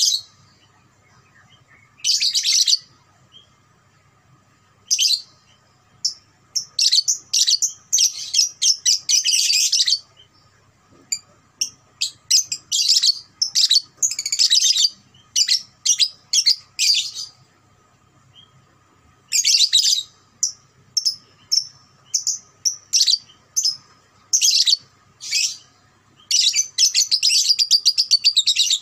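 Young Fischer's lovebird, about two and a half months old, giving its ngekek chatter: rapid strings of shrill chirps in bouts of one to several seconds, with short pauses between them.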